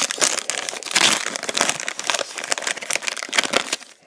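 Plastic trading-card pack wrapper crinkling and crackling as it is handled, dying away just before the end.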